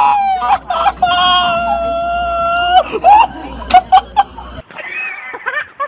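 A person shrieking: short high cries, then one long, steady, high-pitched wail lasting nearly two seconds, then a few shorter yelps. The sound cuts off abruptly a little over four and a half seconds in.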